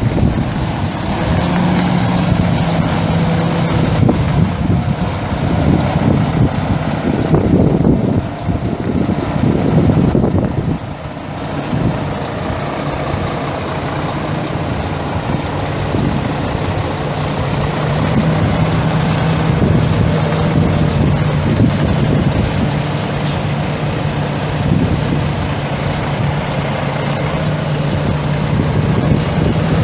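A 2013 International ProStar semi truck's MaxxForce 13 six-cylinder turbo diesel runs steadily with a constant hum. It is louder and rougher in the first ten seconds, then settles.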